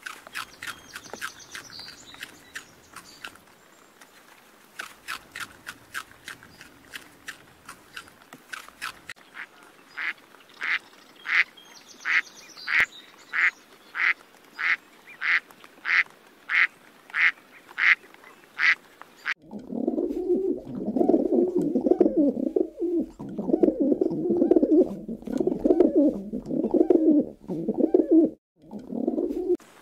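Soft irregular clicking, then a duck quacking in a steady run of short, sharp quacks, about two a second. About two-thirds of the way through this gives way to pigeons cooing in low, rolling phrases that repeat over and over.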